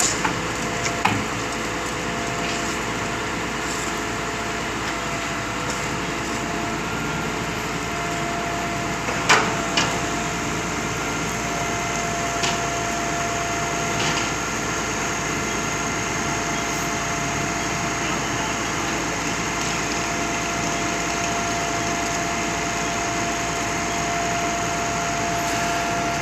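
Concrete pump's engine running steadily, with a steady whine over it and a few sharp metallic knocks, among them two close together about nine seconds in.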